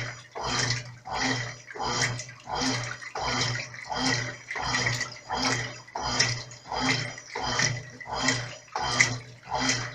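Brastemp Clean 5 kg top-load washing machine agitating a load in water on the delicate setting. The agitator swings back and forth about three strokes every two seconds, each stroke with a motor hum and a swish of water.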